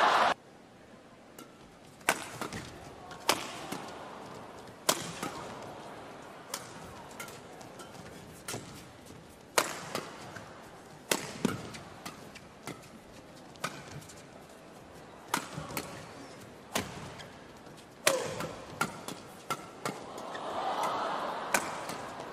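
Badminton rackets striking a shuttlecock in a doubles rally: sharp cracks at irregular intervals, some close together and some a second or more apart. A crowd's noise swells near the end.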